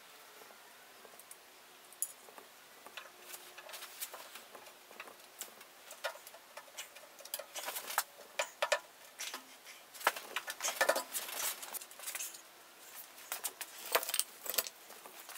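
Irregular light clicks, taps and knocks from handling the wooden parts of an oak chair and the glue brush and pot while gluing the joints and fitting the chair back together. The taps are sparse at first and come thicker from about halfway through.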